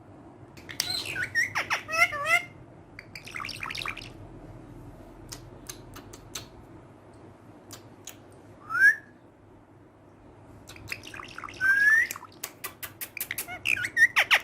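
Green pet parrot calling in short bursts of squawks and chirps, with two rising whistles about nine and twelve seconds in, among scattered sharp clicks.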